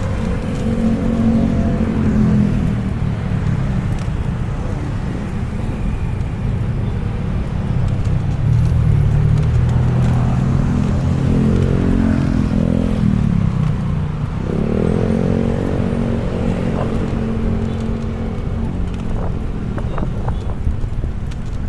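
Road traffic: motor vehicles going by, their engine note rising and falling as each passes, over a steady low rumble.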